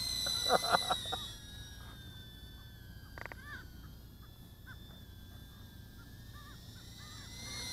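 Eachine Aurora 90 mini quadcopter's 7500 kV brushless motors and ducted quad-blade propellers whining at a high pitch, loud for the first second, fading in the middle and rising again near the end. A few short bird calls in the quieter middle.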